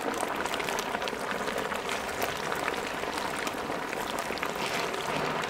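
Beef ribs deep-frying in oil heated to about 200 °C in a kazan: loud, steady sizzling and crackling with dense popping of spitting fat, cold meat searing in very hot oil.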